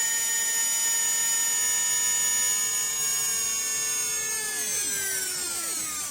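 Small electric free-flight model motor running with a steady whine at full power. About four seconds in, the pitch starts to fall as the electronic timer ramps the power down.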